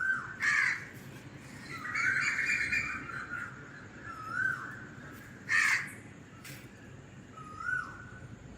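Birds calling: short calls that rise and fall, repeated every few seconds, with louder, rougher calls about half a second in and again past the middle.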